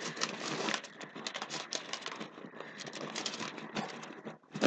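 Fabric and plastic of a baby sleeper being handled: rustling and crinkling with scattered small clicks, and one sharp knock near the end.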